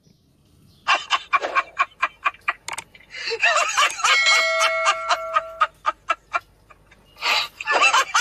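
Pet parakeet chattering in quick clicks and short calls, with a steady pitched note held for about a second and a half partway through and a louder burst of calls near the end.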